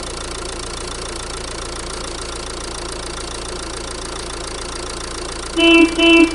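Vehicle engine idling steadily, then a horn honks twice in quick succession near the end, the honks louder than the engine.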